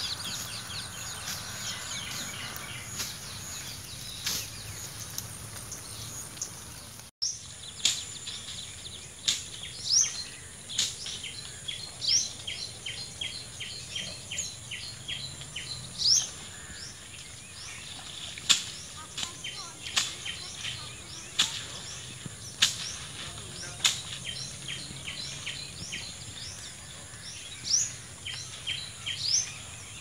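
Outdoor ambience of birds and insects: a steady high insect drone under repeated bird calls, sharp short notes about every second and a half mixed with quick rising chirps and fast runs of ticking notes. The sound cuts out briefly about seven seconds in.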